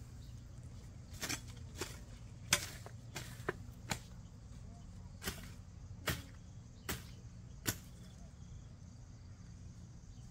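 A series of about ten sharp knocks at uneven intervals, stopping about eight seconds in, over a faint steady low hum.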